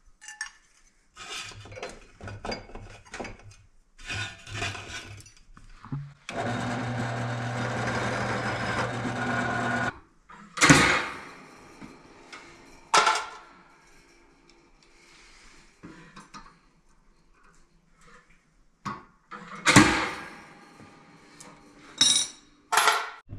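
A power drill running steadily for about four seconds, countersinking a rivet hole in steel, after some short bursts of work noise. Then five sharp metal clanks and knocks, spaced a few seconds apart.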